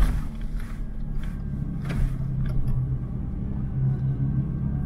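A steady low engine rumble with a hum, and a few sharp clicks or knocks, the loudest right at the start and another about two seconds in.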